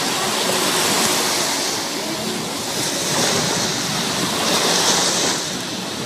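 Black Sea surf: small waves breaking and washing in a steady, continuous hiss that swells a little every couple of seconds.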